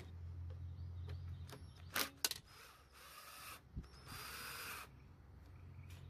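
Socket ratchet loosening the bolt on a lawn mower engine's auto choke bracket: a couple of sharp metal clicks about two seconds in, then two short bursts of rapid ratcheting.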